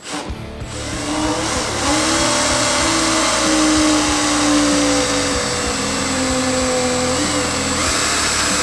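Cordless drill running under load, its bit boring a hole through the pickup's sheet-metal hood. A steady motor whine, wavering slightly in pitch, over the hiss of the bit cutting metal.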